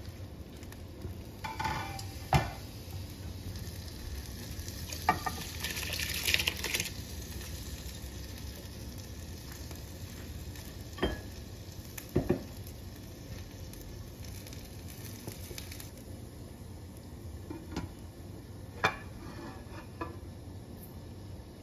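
Large aluminium pot of water heating on a gas stove with a steady hiss, with a few sharp metallic clinks and knocks against the pot; near the end a metal lid is set on.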